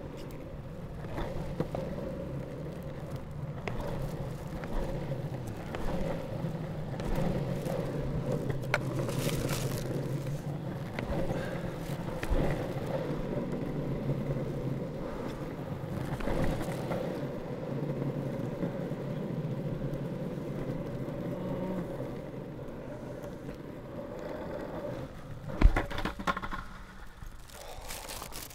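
Longboard wheels rolling over asphalt, a steady rumble with small knocks and scrapes. The rolling stops near the end with one sharp loud knock, followed by a few lighter handling sounds.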